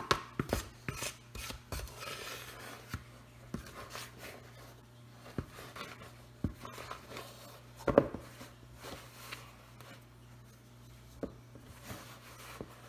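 Measuring cup scooping and scraping through flour in a bowl, with scattered light taps and a sharp knock about eight seconds in, as flour is measured out cup by cup; a faint steady low hum underneath.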